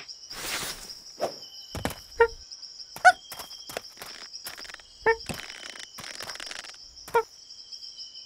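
Cartoon jungle ambience: a steady high insect drone, with short chirping calls every second or two and light tapping footsteps.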